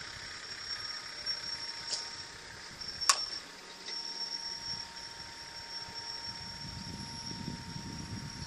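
A Resmondo composite slowpitch softball bat hitting a softball once: a single sharp crack about three seconds in.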